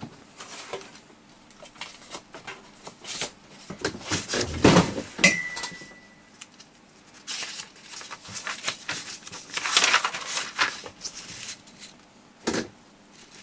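Paper instruction booklet being handled, slid about and opened on a workbench, with rustling and knocks. About five seconds in, something gives a short ringing ping that fades over about a second, and there is a sharp knock near the end.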